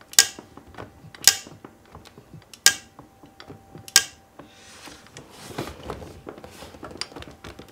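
Box wrench on the cam sprocket bolt of a Yamaha SR400 single clacking sharply four times, a little over a second apart, then a softer scraping about five seconds in. The sprocket and cam chain turn with the wrench instead of the bolt breaking loose, because the crank is not locked with a rotor holder.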